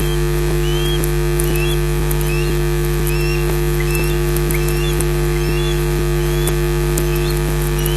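Osprey calling in display flight: a steady series of short, upward-curving whistled chirps, about one or two a second, heard over a loud, steady electrical hum with faint crackling clicks.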